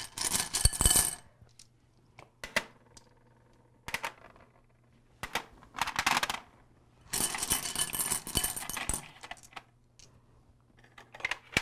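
Irregular clinks and clatters of small hard objects: black pebbles and scallop shells being set down on a metal baking tray, with a spoon working filling out of a pan.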